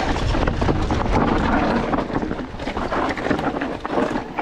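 Enduro mountain bike riding down a trail: wind rumbling on the microphone under tyre noise and a steady stream of short rattling clicks and knocks from the bike.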